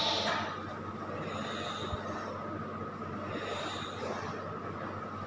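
Gas hissing through an anaesthesia machine's breathing circuit as its rubber breathing bag is squeezed by hand: a louder hiss at the start that fades within half a second, then short, softer hisses about every two seconds, over a steady machine hum.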